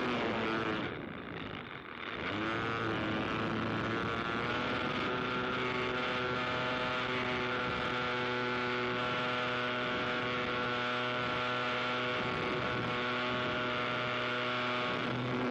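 Aircraft engine running at a steady pitch. It dips briefly about a second in, then holds an even note.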